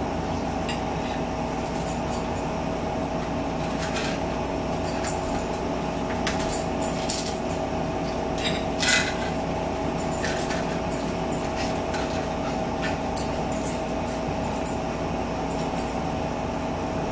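Metal forks clicking and scraping on plates during a meal, a few scattered clinks with a louder clatter about halfway through, over a steady background hum.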